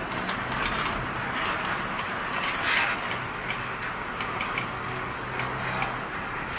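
3-metre-wide automatic fabric spreading machine running as it lays fabric: a steady motor hum with irregular mechanical ticks and clicks.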